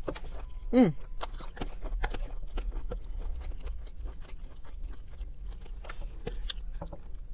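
Close-up chewing and mouth sounds of a person eating vegan chicken with gravy: soft wet smacks and many small clicks. A short hummed "mm" falls in pitch about a second in, and a sharper click comes near the end.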